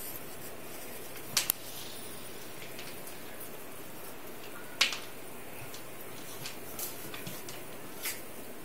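Sharp, scattered clicks and taps as a Yorkshire terrier puppy plays with dry kibble on a hard floor, over a steady hiss. There are two quick clicks about a second and a half in, a louder one around five seconds, and one near the end.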